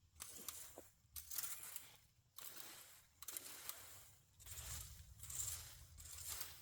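Rake strokes scraping through debris on the ground: six or seven scratchy sweeps in quick succession, each under a second long.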